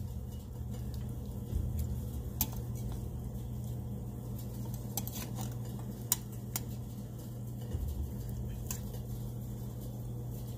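Metal tongs clicking and tapping against a glass baking dish as beef short ribs are turned over: a few sharp, separate clicks over a steady low hum.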